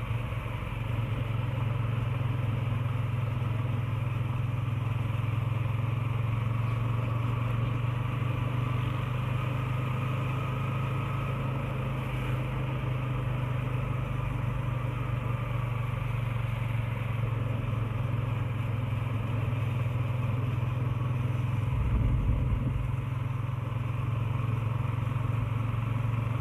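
Motorcycle engine running steadily as the bike rides along at an even speed, a constant low hum with rumbling beneath it. A brief louder rumble comes near the end.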